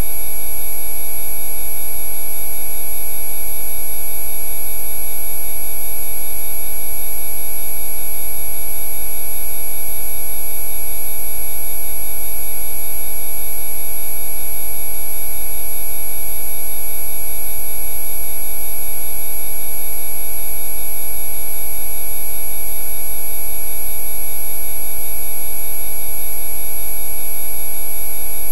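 A Rife frequency track: many pure electronic sine tones sounding together, held steady and unchanging, over a low hum.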